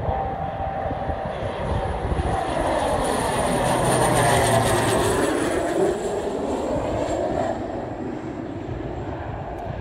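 An airplane passing overhead: its engine noise swells to a peak about four to five seconds in and then fades away, with a thin high whine slowly falling in pitch as it goes by.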